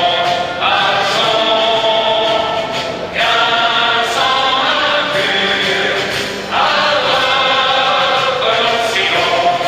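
Choral music: a choir singing long held chords that change every few seconds.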